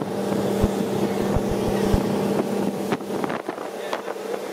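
Motorboat running at speed: a steady engine drone over the rush of its wake spray, with wind on the microphone. There are a few low thumps in the first two seconds, and the drone eases slightly about three and a half seconds in.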